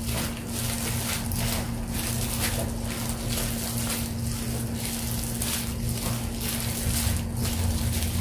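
Plastic-gloved hands squeezing and turning crumbly flour dough in a stainless steel bowl: soft, irregular rustling and scraping strokes over a steady low hum.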